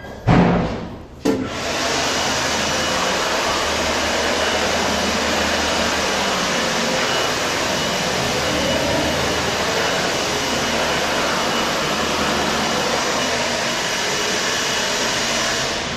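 An electric hand dryer blowing steadily for about fourteen seconds, starting just over a second in, after a loud thump.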